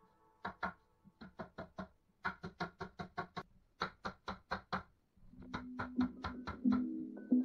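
Mallet knocking on painted wooden shelving in quick runs of two to five taps, tapping shelves and dividers into their dados. Music comes in underneath about five seconds in.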